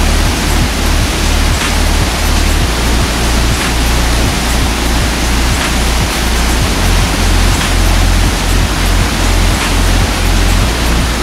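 A waterfall pouring: a loud, steady rush of falling water with a deep rumble underneath.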